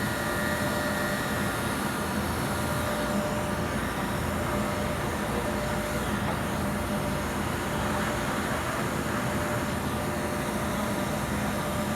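Leister hot air welder running: the steady whir of its blower and the hiss of hot air from the nozzle, with a faint steady hum.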